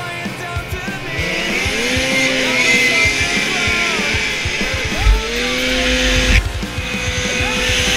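Rock music laid over a 1994 Arctic Cat 440 Cougar snowmobile's two-stroke engine revving hard at a drag-race launch. The engine note climbs about a second in and then holds steady, then dips and climbs again about five seconds in.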